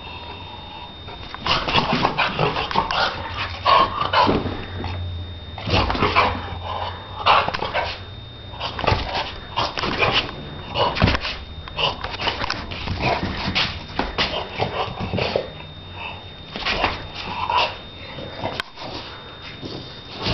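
Shar Pei playing and giving short barks and yips in quick, irregular bursts, starting about a second and a half in.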